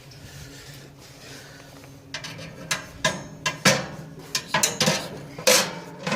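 Metal grill grates being handled, clanking and scraping against each other and the grill. About two seconds in there begins a quick, irregular run of sharp knocks.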